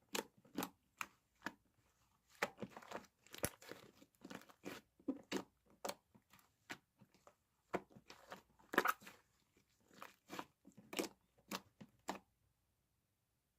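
Slime being squished and pressed by hand, giving irregular crackling and popping clicks; they stop shortly before the end.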